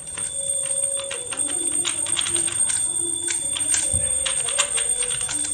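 Rubik's cubes being turned fast in a speed solve: a dense, irregular clatter of plastic clicks as the layers snap round.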